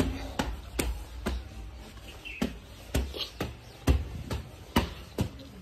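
Footsteps of a person walking, about two steps a second, each a short sharp click, with faint bird chirps now and then.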